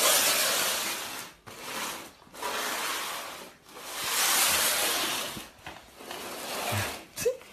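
Cardboard box sliding and scraping across a smooth hard floor as it is pushed along with a cat inside, in several long scrapes one after another.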